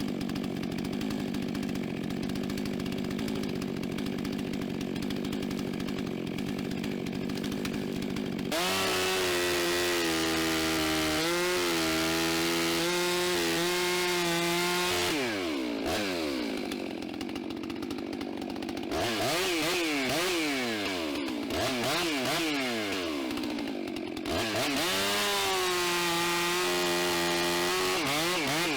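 Gas chainsaw idling, then revved to full throttle about eight seconds in and held there for several seconds. It drops back, is blipped up and down several times, then is held at full throttle again near the end before easing off.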